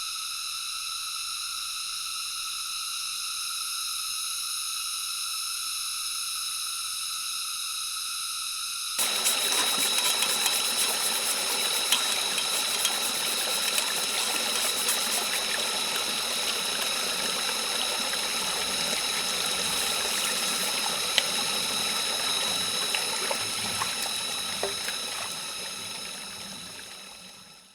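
Forest ambience: a steady high buzzing made of many pitches at once. About nine seconds in it cuts abruptly to a steady rushing, water-like noise with a high steady tone and scattered ticks, which fades out near the end.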